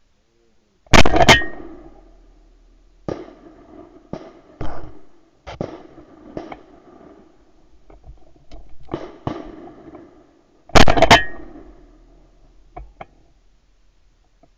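Shotgun blasts heard from a camera mounted on the gun: two very loud shots about ten seconds apart, with a scatter of fainter sharp bangs between them.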